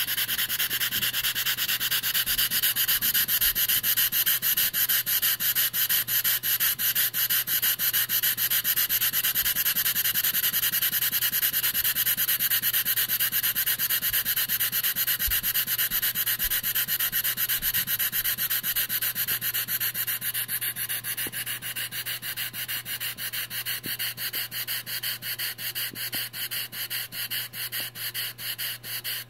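Stuart 10V single-cylinder model steam engine running on compressed air: a fast, even chuffing of hissing exhaust pulses. From about two-thirds of the way through, the chuffing gets quieter and the beats more spaced out as the air is turned down to slow the engine.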